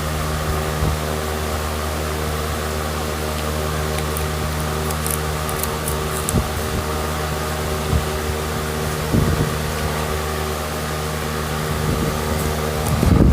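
Steady mechanical hum of a running motor, holding one pitch throughout, with a few faint knocks.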